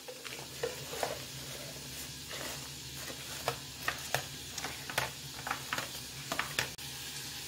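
Baking paper rustling and soft scattered taps as hands unroll a pastry sheet and press it into a tart tin, over a faint steady low hum.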